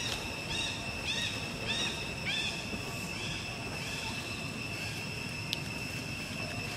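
A baby long-tailed macaque giving a run of short, high-pitched arching cries, about two a second, that fade out after about three seconds, over a steady high-pitched drone.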